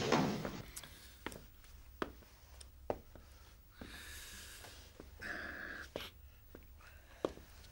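Background music dies away at the very start. Then slow, scattered footsteps of leather dress shoes on a hard tiled floor, a sharp tap every second or so, with a couple of soft rustles in between.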